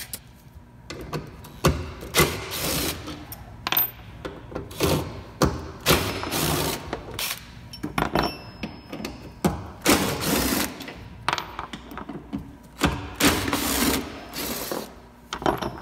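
DeWalt 20V cordless impact driver with a T50 Torx bit on an extension, running in a series of short bursts as it backs out the bolts holding the bed's cargo hooks.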